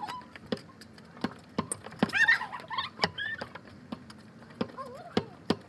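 Footsteps tapping close to a phone lying on the ground, irregular, with a few short high squeals about two and three seconds in.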